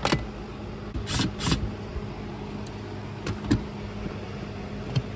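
Scattered sharp clicks and light taps from hands working on parts behind a car's dashboard, over a steady low hum.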